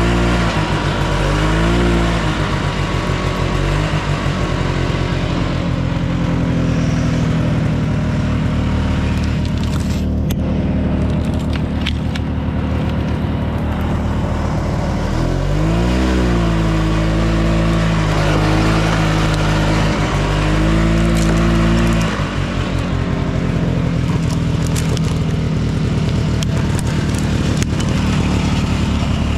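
Yamaha Bravo snowmobile's two-stroke engine running under way. The revs dip and climb back near the start, rise and fall again around the middle, and drop off a little about two-thirds of the way through as the throttle is worked.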